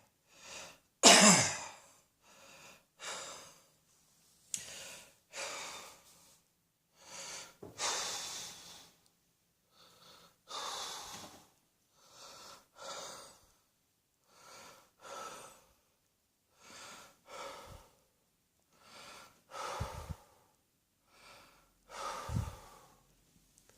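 A person coughs loudly about a second in, then breathes slowly and heavily in and out, each breath separated by a short silence, some with a faint wheeze. Two stronger breaths or coughs come near the end.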